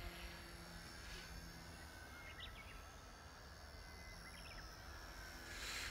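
Faint, distant whine of an XK K110 electric micro RC helicopter in flight, its pitch drifting slightly, over a low wind rumble. Two brief faint chirps come in the middle.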